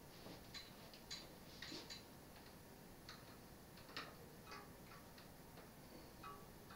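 Faint, irregular small clicks and taps of a mountain bike's front wheel being fitted into the fork and its quick-release skewer handled, with a sharper click at the very end.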